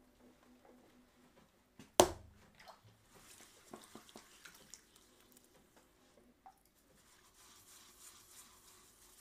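Wet clay squelching under a potter's hands as it is pressed and smoothed on a spinning pottery wheel, with scattered small wet clicks. A single sharp knock stands out about two seconds in.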